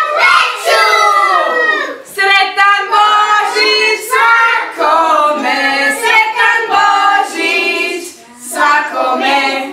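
Young children singing a song together in held, sustained notes, with a short break a little before the end.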